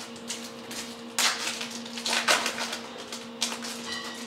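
Stiff Topps Chrome trading cards handled and flipped through by hand: a few short rustling swipes about a second apart, over a steady low hum.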